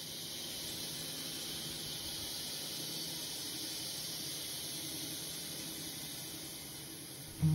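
Steady high hiss, even and unchanging, with no rhythm or pitch.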